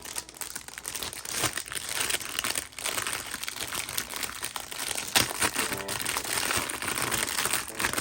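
Packaging being handled and unwrapped, with continuous irregular crinkling and crackling.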